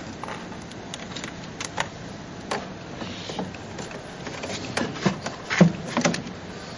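Clear acrylic cover panel of a model vending machine being handled and lifted off, giving scattered light knocks and clicks of plastic, with a cluster of sharper knocks about five seconds in, the loudest among them.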